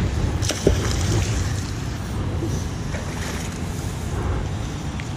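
Steady low rumble of wind buffeting the microphone, with one short sharp knock about two thirds of a second in.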